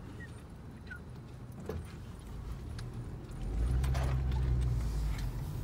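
Car engine and road noise heard from inside the cabin, a low rumble that grows louder about three and a half seconds in as the car pulls away from a traffic light.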